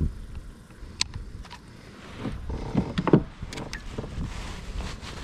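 Knocks, clicks and rattles of a caught bass and gear being handled aboard a kayak while the fish is weighed on a scale. There is a thump at the start, a sharp click about a second in, and a cluster of knocks and rattles around the middle.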